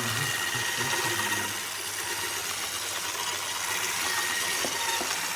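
Handheld immersion blender motor running steadily, a hissing whir with no breaks.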